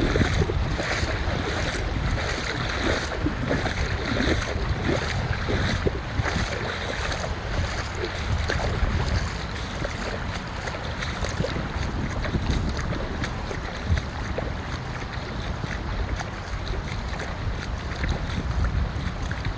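Wind buffeting the microphone over the wash of ocean surf, with footsteps on the beach about twice a second that fade in the second half.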